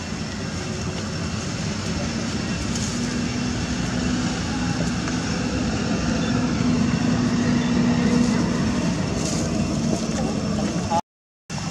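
A steady engine drone with a noisy hiss over it, growing louder to about eight seconds in and then easing off; the sound cuts out completely for a moment near the end.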